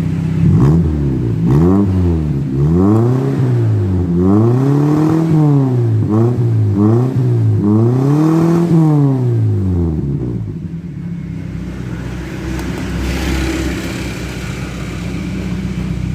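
1993 Toyota Kijang Rover engine breathing through a freshly fitted aftermarket exhaust with a resonator, revved up and back down about seven times, then settling to a steady idle about ten seconds in. The resonator is fitted to keep the note mellow rather than noisy.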